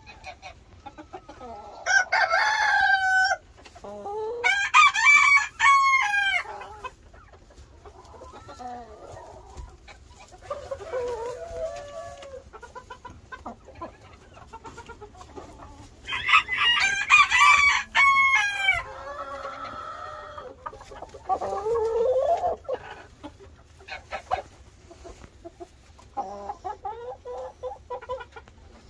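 Brahma bantam cockerel crowing three times, with quieter clucks and calls in between.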